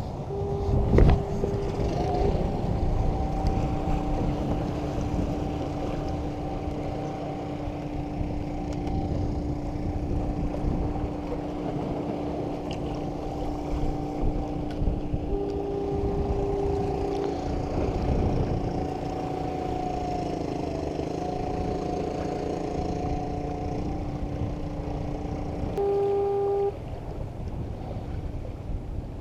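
Outdoor wind-and-water rumble on the microphone, with steady engine-like humming tones that hold for long stretches, as from a motorboat running nearby. A sharp knock about a second in.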